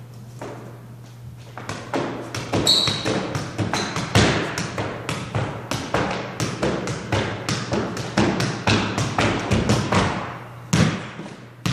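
Football being juggled: quick repeated thumps of foot on ball, mixed with shoe steps on a wooden court floor, about three or four a second. They start about two seconds in and stop shortly before the end.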